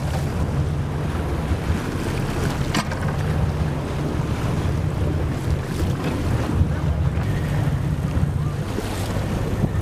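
Steady low engine rumble of amphibious assault vehicles swimming through the sea, with water washing and splashing and wind buffeting the microphone. There is a sharp click about three seconds in.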